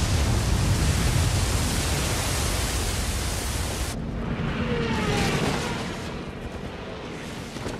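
Loud rushing roar of seawater flooding into the sinking battleship, with heavy low rumble, cutting off abruptly about four seconds in. After it comes quieter noise with a few short gliding tones, fading near the end.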